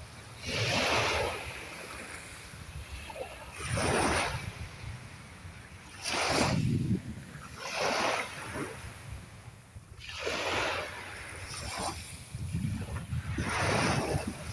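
Sea waves breaking and washing in, six surges about every two to three seconds, over a steady low rumble.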